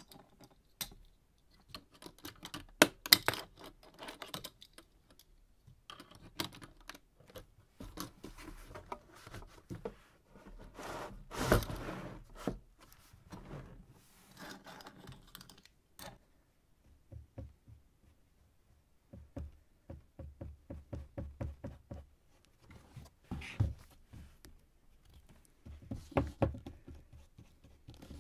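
Cardboard being worked by hand: irregular taps and knocks, a longer rasping stretch about twelve seconds in, and later runs of quick, even strokes at about four a second.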